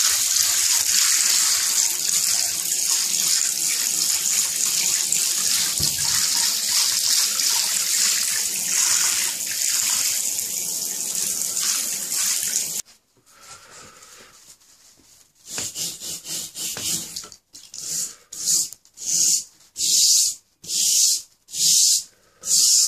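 Tap water running steadily into a bathtub, cutting off suddenly about 13 seconds in. After a short pause, a scrub brush rubs back and forth over a Bosc monitor's wet scales in rhythmic strokes, a little more than one a second.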